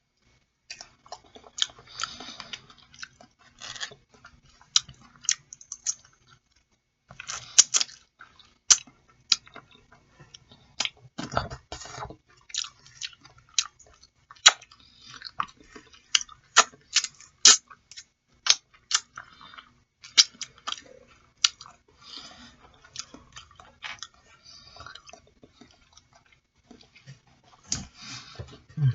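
A person chewing boiled chicken feet close to the microphone, with sharp smacking clicks at irregular intervals, a short pause about six seconds in, and one longer, deeper sound about eleven seconds in.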